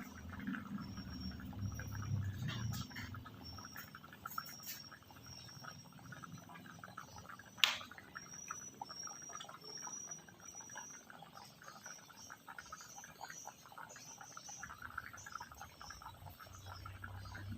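Animal calls: a short high chirp repeated about one and a half times a second, later a quicker run of chirps, over a faint crackle. One sharp click about eight seconds in.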